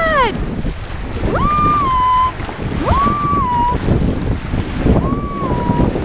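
Wind on the microphone and rushing sea water at the bow of a sailing yacht under way. Three short, high whistle-like calls sound over it, each sliding up quickly and then held briefly.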